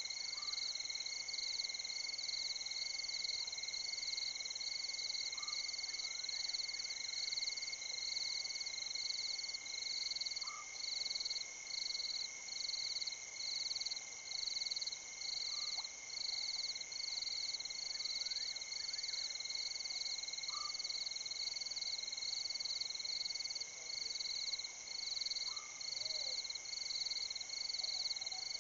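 Night chorus of frogs and insects by the water: a steady high trill, a high chirp pulsing on and off in an even rhythm, and a short lower call repeated about every five seconds.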